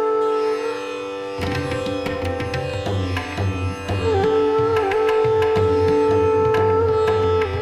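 Instrumental background music: a held melody, joined about a second and a half in by plucked notes and rhythmic percussion.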